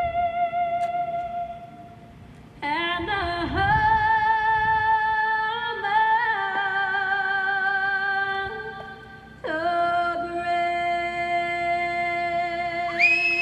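Music with a singer holding long, steady notes, each sliding into pitch at its start, with short breaks between phrases.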